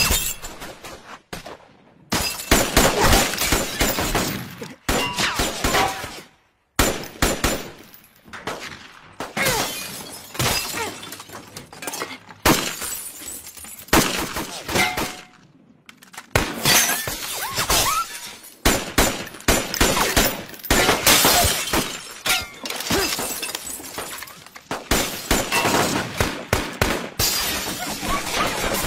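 Shootout gunfire: repeated rifle and gun shots in rapid volleys with short pauses between, mixed with glass shattering.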